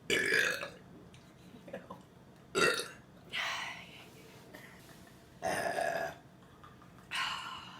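A person burping loudly on purpose, about five burps in a row, one every second or two.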